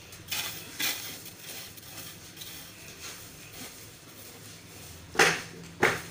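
Hard clatter of cleaning tools being handled, a broom and a metal-poled mop knocking against hard things. There are two light knocks in the first second and two loud sharp knocks close together near the end.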